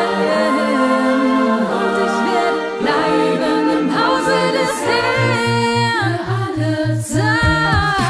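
Layered a cappella voices singing sustained, shifting chords. A low rhythmic pulse of about four beats a second joins about five seconds in.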